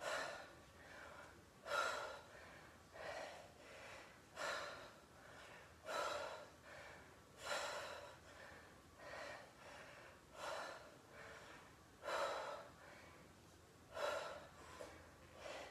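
A woman's forceful exhalations, one with each dumbbell punch-and-twist, about one every one and a half seconds: breathing hard from the exercise.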